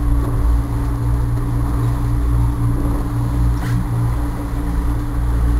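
A boat's engine running steadily with the boat under way: a constant low drone with one steady tone above it.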